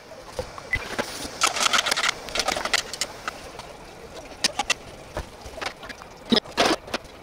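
Kitchen utensils clicking and clinking against metal cookware: chopsticks and spatula on a steel bowl and pans. A denser run of quick clatter comes about one and a half to three seconds in.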